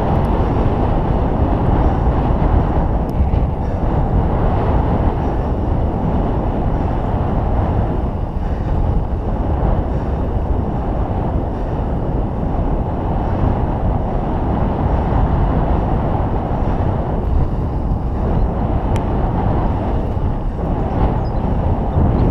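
Steady wind noise on a handlebar-mounted GoPro's microphone while riding a road bike at speed, mixed with the bike's tyres rolling on tarmac.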